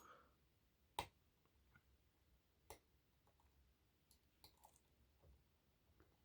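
Faint, sparse clicks of a pick and tension wrench working the pins inside an ASSA Twin Exclusive lock cylinder, with the clearest click about a second in and a few softer ones after.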